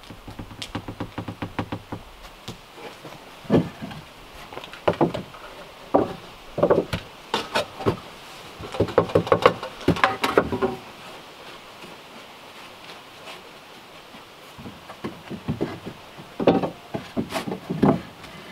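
Galvanized metal pail being handled on a wooden step: a quick run of light taps, then scattered knocks and clatter, a quiet pause, and a few more knocks near the end.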